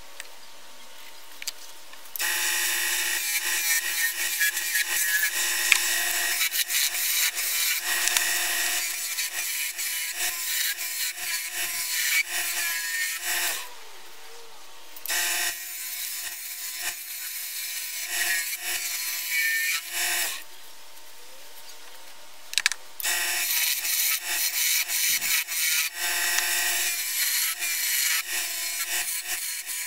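Wood lathe turning a spinning wooden candlestick blank while a hand-held turning tool cuts it, a loud scraping hiss of shavings coming off. The cutting starts about two seconds in and comes in three long passes with short pauses between them.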